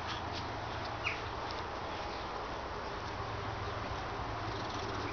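A single short, high-pitched squeak from a Siberian Husky puppy at play, about a second in, over steady outdoor background noise with a few faint ticks.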